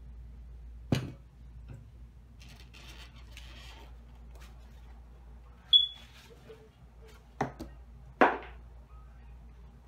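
A ceramic serving dish is set down on a countertop with a sharp knock about a second in. A short high clink follows near the middle, then two more knocks near the end, over a faint low steady hum.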